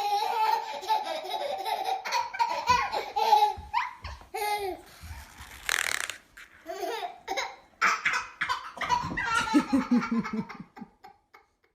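A baby laughing in repeated high-pitched bursts, with a short breathy squeal about halfway through.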